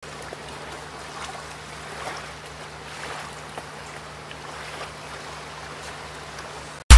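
Small waves lapping onto a sandy beach: a steady wash of water that rises and falls gently, with a faint steady low hum underneath. Loud electronic music cuts in suddenly at the very end.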